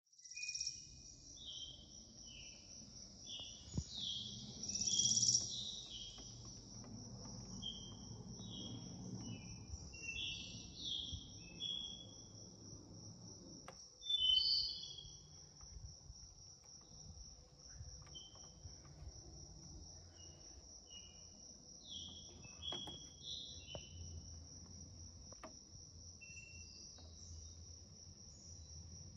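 Insects chirring in one steady high-pitched note, with short bird chirps scattered throughout and a few faint clicks.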